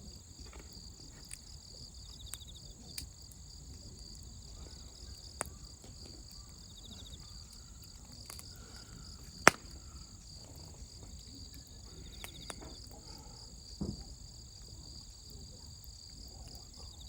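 Wood fire crackling, with scattered sharp pops, the loudest about nine seconds in, over a steady high-pitched chirring of insects.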